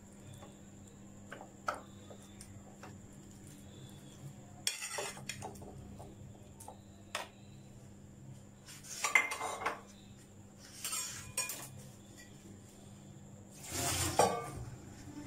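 Raw chicken pieces being tipped from a glass bowl into a food processor's plastic bowl: scattered light clinks and knocks of glass and plastic, with a few short rustling handling noises.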